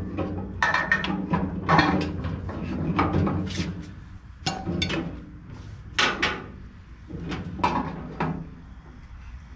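Irregular metal clunks, clicks and scrapes as a gear transmission is handled and fitted into a 14-inch Delta band saw, over a steady low hum.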